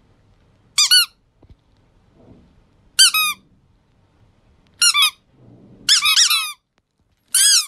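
A squeaky toy squeaking in five short runs of two to four quick squeaks. Each squeak is high-pitched and rises, then falls, in pitch.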